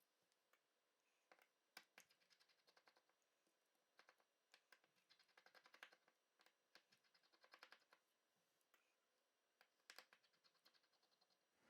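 Near silence, with faint scattered small clicks.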